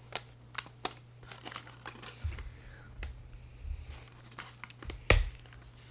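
Candy wrapper crinkling as it is handled, with a run of sharp crackles, a few dull thuds, and one louder snap about five seconds in.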